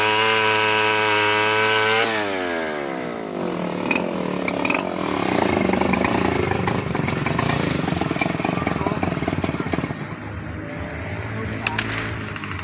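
Homemade chainsaw ripping mango wood: it is held at high revs, then drops in speed about two seconds in and runs on unevenly with a rougher sound. It is quieter in the last few seconds.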